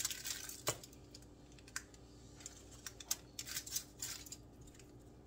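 Scattered light clicks and taps of a utensil against a cake plate while buttercream frosting is spread on a cake, the sharpest about a second in.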